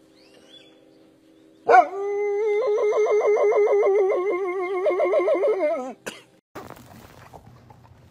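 A dog howling: one long howl of about four seconds, starting about two seconds in. Its pitch wavers rapidly through the middle and drops away at the end. A brief click and faint low noise follow.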